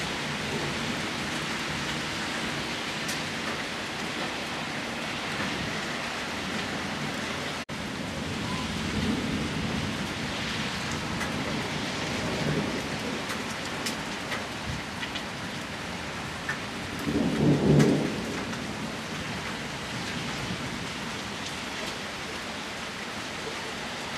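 Steady rain from a thunderstorm, with low rumbles of thunder; the loudest rumble comes about three-quarters of the way through and lasts around a second.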